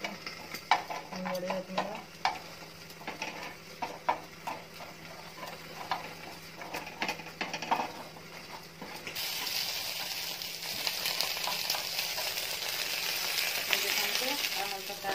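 Wooden spatula scraping and tapping on a nonstick frying pan as frying badi (lentil dumplings) are turned, over a light sizzle. About nine seconds in, a loud steady sizzle begins as sliced brinjal, okra and tomato fry in oil on the pan.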